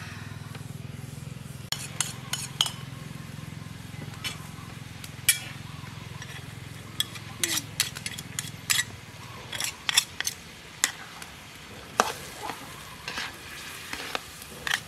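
Metal spatula and spoon stirring a thick mixture in a steel wok over a wood fire, with sharp, irregular scrapes and clinks against the pan from about two seconds in, over a faint sizzle.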